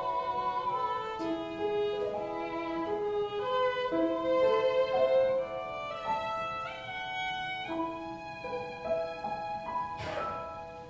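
Violin playing a slow melody of long held notes, over piano accompaniment. A single sharp knock sounds near the end as the music fades.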